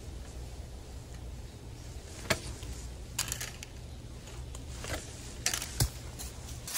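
A long-reach pole pruner working among branches: about half a dozen sharp clicks and snaps, the loudest about two seconds in and the rest between three and six seconds, over a low steady rumble.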